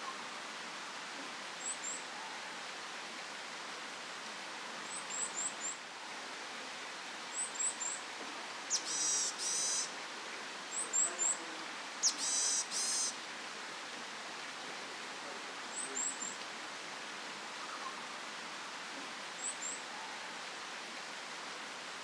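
Varied tits calling: the male's song, a repeated 'tsu-tsu-pii' of short high notes in little groups every few seconds, and twice a pair of louder, harsh nasal 'nii-nii' calls, the female answering his song.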